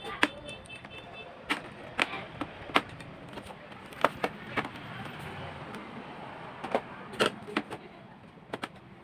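Scattered sharp clicks and knocks at irregular intervals, about a dozen of them, over a steady background hiss.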